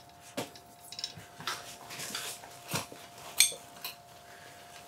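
Handling noise from an LMT MARS-H rifle on a workbench: a string of light clicks and knocks of hard metal and plastic parts, the sharpest about three and a half seconds in, over a faint steady hum.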